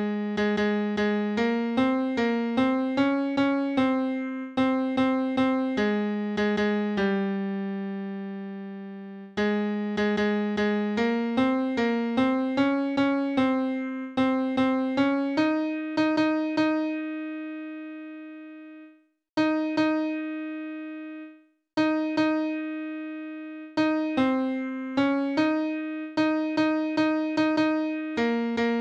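Computer score playback of a choral hymn arrangement, every part sounded in a sampled piano tone: struck chords and melody notes that each die away. Near the middle the music thins to single held notes, with two brief gaps of silence.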